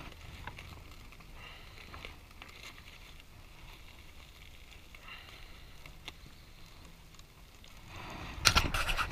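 Faint scraping and small clicks of a metal fork picking at food in a crumpled aluminium foil packet, with a burst of louder knocks and rustling near the end.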